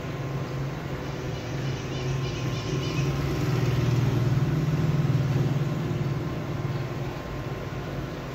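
Low, steady mechanical hum that swells louder from about three seconds in and fades again by about seven seconds.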